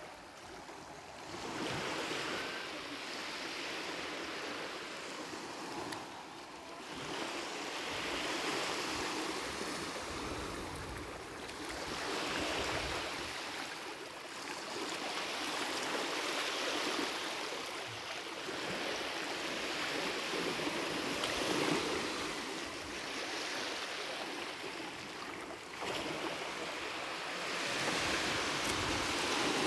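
Small waves lapping and washing up on a sandy beach, the hiss swelling and fading every few seconds, with occasional wind rumble on the microphone.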